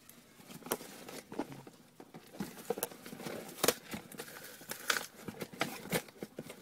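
Hands scratching and tearing at packing tape on a cardboard shipping box: irregular crinkling and sharp scraping clicks.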